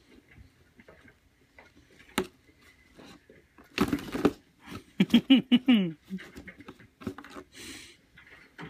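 A cat scrambling inside a cardboard shoe box: scattered taps and knocks on the cardboard and a burst of scratching and scraping about four seconds in. Just after five seconds comes a louder, short voice-like sound that falls in pitch.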